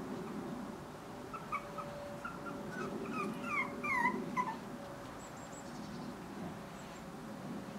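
Five-week-old Bolonka Zwetna puppy whimpering: a string of short, high whines starting about a second and a half in, ending in a few falling whines around four seconds.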